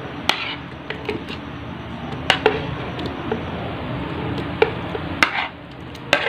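A metal spoon scraping and tapping against a ceramic plate as soft cut peach pieces are pushed off into a plastic blender jar. Several sharp clicks of the spoon on the plate are scattered through it over a steady low background.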